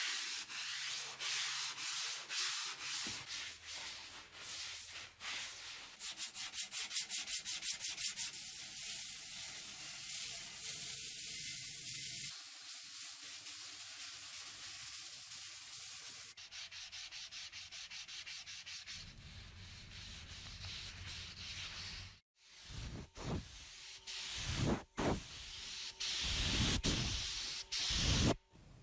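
Hand sanding: a rasping rub in back-and-forth strokes, with a fast, even run of strokes about six seconds in. It cuts out briefly about twenty-two seconds in, then comes back in louder, uneven strokes.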